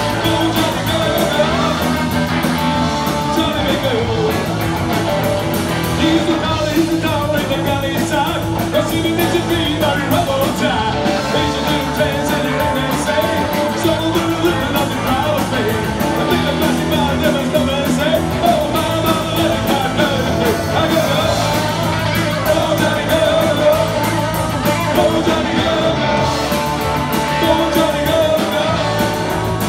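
Live rock band playing electric guitars over a steady drum beat, with a man singing lead vocals.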